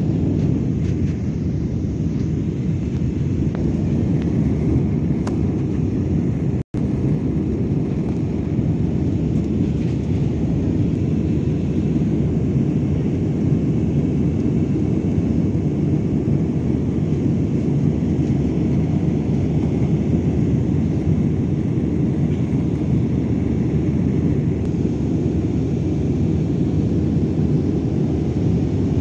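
Steady low roar of jet engines and rushing air inside an Airbus A320 cabin as the airliner climbs out after takeoff. The sound cuts out for an instant about seven seconds in.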